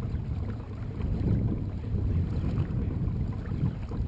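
A kayak under way: a low, uneven rumble of wind on the microphone, mixed with water rushing along the hull.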